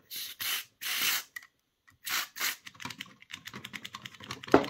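DeoxIT contact-cleaner aerosol hissing in several short bursts through its extension straw into a slide switch on the circuit board. It is followed by a fast run of small clicks and rattles, with one sharper click near the end.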